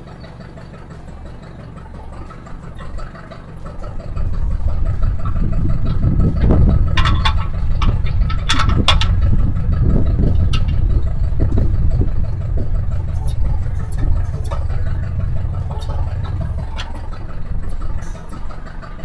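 Hattat tractor's diesel engine running, its low rumble growing much louder about four seconds in and holding there, with a few sharp metal clanks a few seconds later.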